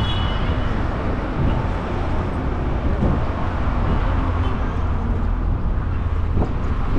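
Steady road traffic noise from cars running along a busy city street.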